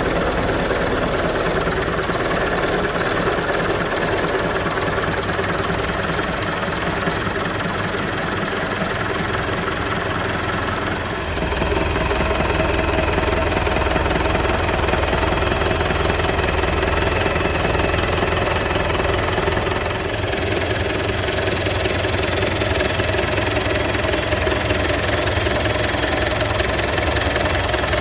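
Stocka 3060 F truck's inline diesel engine idling steadily, getting louder and deeper about eleven seconds in.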